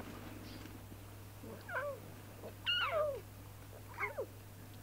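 Lion cubs mewing: three short, high, cat-like calls about a second apart, each sliding down in pitch, the middle one loudest.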